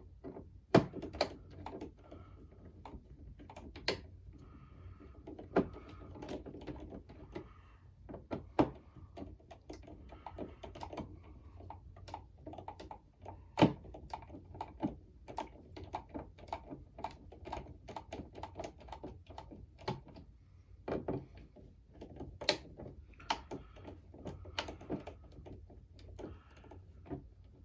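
Screwdriver driving a light switch's mounting screws into the wall box: irregular sharp clicks and taps of the tool against metal and plastic, with faint scraping as the screws turn.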